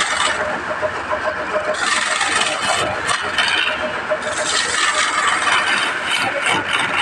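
Wood lathe spinning a wooden blank while a hand-held turning tool cuts into it: a rasping scrape that swells in several bursts as the tool is pressed in, over the steady running of the lathe.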